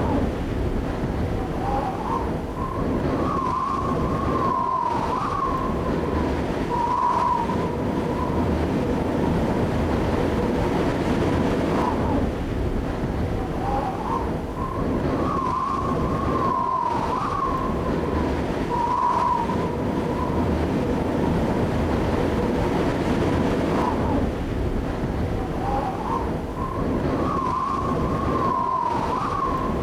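A steady rushing drone with a wavering high tone that rises and falls, then drops away, in a cycle repeating about every twelve seconds, like a looped ambient soundtrack.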